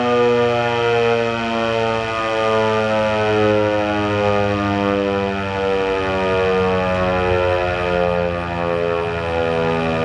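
ASC T-128 rotating outdoor warning siren sounding a steady tone for its routine monthly test. The pitch holds nearly level while the loudness swells and fades over and over as the horn turns.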